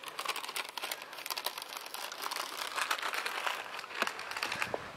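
Dry grass and weeds rustling and crackling close up as someone pushes through them, a dense run of small crackles.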